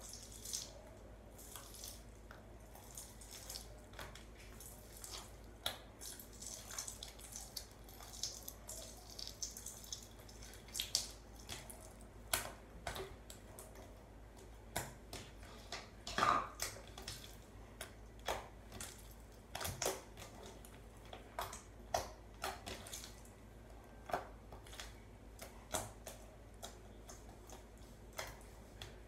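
Slime being squished and pressed by hand, making irregular small pops and clicks, with one louder pop about sixteen seconds in.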